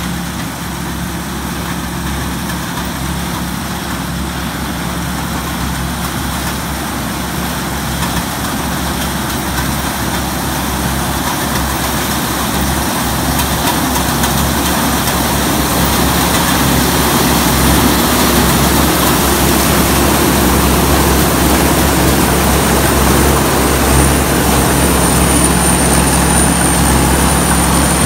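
TAMCO S7000 combine harvester, its Isuzu 6HK1 six-cylinder diesel running steadily under load while it harvests corn, growing louder as the machine comes closer. A high whine comes in over the last few seconds.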